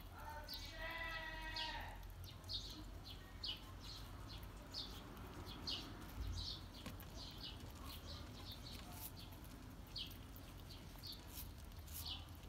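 Red squirrel nibbling an apple slice: quick, crisp little crunching clicks, several a second at an uneven pace. Starting about half a second in, a short pitched, wavering voice-like sound lasts over a second.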